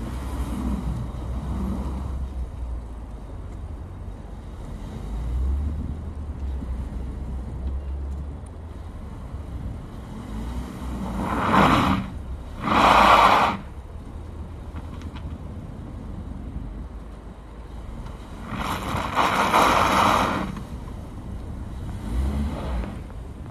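A 2022 Mazda 6's 2.5-litre four-cylinder engine running and revving as its front wheels spin and churn through deep snow. There are loud surges of wheelspin, two short ones close together about halfway through and a longer one some seven seconds later.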